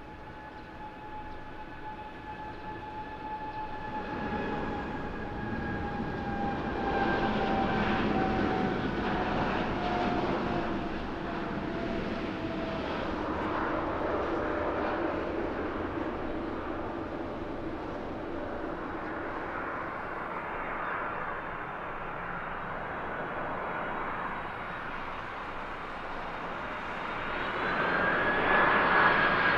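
Boeing 747-8 freighter's four GEnx turbofans at takeoff power as it rolls and lifts off. The engine whine slides down in pitch as it passes, and the jet noise grows louder after a few seconds. Near the end a second four-engine Boeing 747 freighter on approach takes over, louder, with a steady higher whine.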